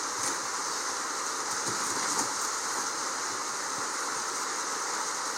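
Steady rain falling: an even hiss that holds level, with a few faint knocks.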